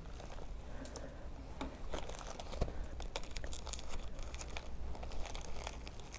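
A small mailing package being torn open by hand, its wrapping crinkling and tearing in a dense run of short, sharp crackles.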